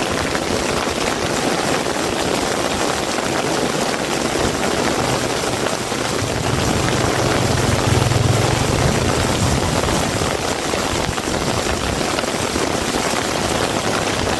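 Heavy rain falling steadily with a dense hiss. Midway a passing vehicle's low engine rumble builds and fades, loudest about eight seconds in.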